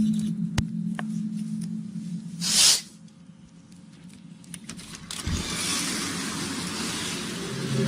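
A steady low droning hum, of the kind posted as a 'strange sound' from the sky, cut off about two and a half seconds in by a short loud hiss. After a quieter stretch, an even rushing noise like wind or distant traffic comes in a little past the five-second mark.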